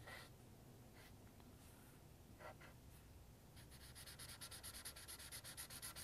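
Felt-tip marker scratching faintly on paper: a few separate strokes, then from about three and a half seconds in a quick run of back-and-forth hatching strokes, several a second, filling in the beak with dark lines.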